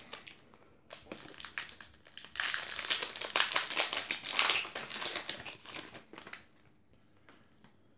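Pokémon TCG booster pack being opened by hand, its foil wrapper crinkling densely for about five seconds and stopping about six seconds in.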